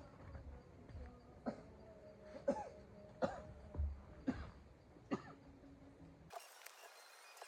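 A man coughing again and again, short coughs about once a second, from the chesty cough he is still sick with.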